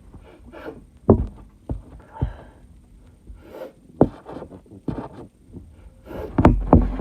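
A person sniffing and snorting sneezing powder up the nose in short, sharp inhales, with several sharp taps and clicks in between.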